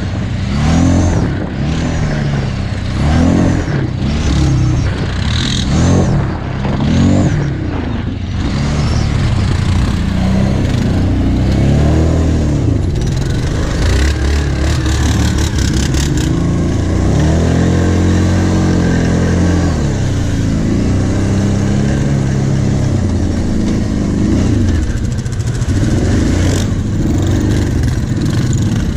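Kawasaki Brute Force 750 ATV's V-twin engine revving up and down in quick surges over the bumps of a sandy trail, with a second quad running just ahead. In the second half it pulls more steadily, with a brief rattle from the bike.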